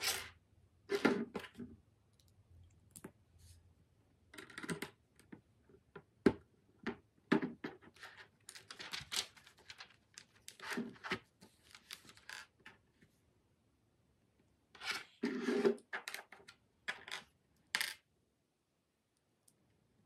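Plastic LEGO bricks clicking and clattering against the tabletop and each other as they are picked from a pile and handled, in short irregular bursts. Partway through comes the rustle of an instruction booklet's page being turned.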